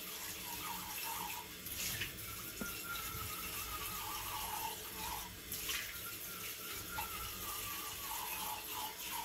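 Tap water running into a small metal Turkish coffee pot (cezve) held under the faucet in a kitchen sink, rinsing it out after the coffee boiled over. A faint tone slides downward three times through the running water, and there are a couple of light knocks.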